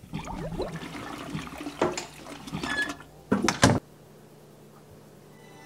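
Toilet flushing with gurgling and splashing water and a few sharp splashes, cut off abruptly about four seconds in.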